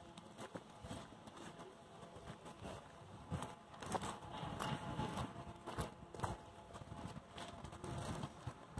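Footsteps crunching on a gravel path while walking, an irregular series of short steps that grow louder from about three seconds in.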